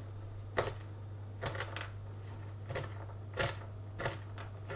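Chef's knife chopping whole almonds on a bamboo cutting board: about six separate sharp chops, a little under a second apart. A low steady hum runs underneath.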